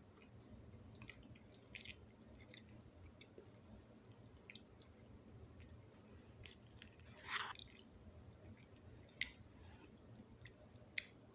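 Faint chewing of a mouthful of oatmeal, with scattered small wet clicks, a louder short rasping sound about seven seconds in and two sharp ticks near the end.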